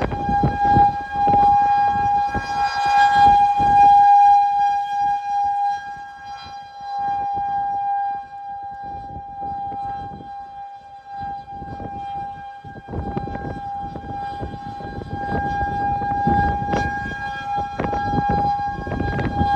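Door warning alarm sounding one unbroken, steady mid-pitched tone. Irregular low rumbling noise runs beneath it, thinning out in the middle stretch.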